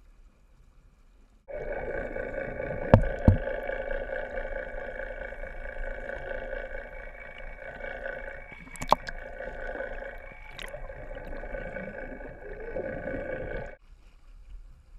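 Underwater sound through a camera held below the surface: a steady hum from the sportfishing boat's engine and propeller at several fixed pitches, starting suddenly and cutting off suddenly near the end. A few sharp knocks, the loudest two about three seconds in.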